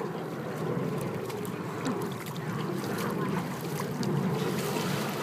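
Pool water splashing and sloshing as a dolphin moves at the surface by the pool edge, with scattered small drips and slaps over a steady low rumble.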